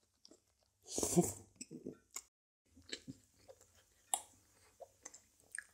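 A man chewing a mouthful of macaroni pie close to the microphone: scattered small wet mouth clicks and smacks, with a brief voiced sound about a second in.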